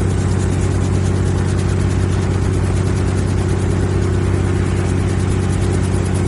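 Helicopter heard from inside the cabin in steady flight: a constant engine drone with a fast, even rotor beat underneath.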